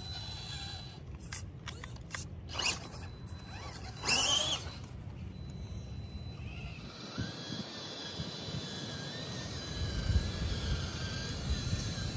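Small RC crawler's electric motor and geared drivetrain whining as the 1/18-scale FMS FCX18 K10 crawls, the pitch rising and falling with the throttle, loudest in a short burst of throttle about four seconds in. A few sharp clicks and knocks come early on, with a steady low rumble underneath.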